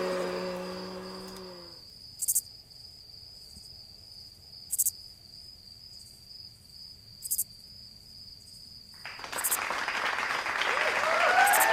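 Crickets chirping: a steady high trill with a sharp chirp about every two and a half seconds, after a low hum fades out in the first two seconds. About nine seconds in, crowd noise swells in and builds toward cheering.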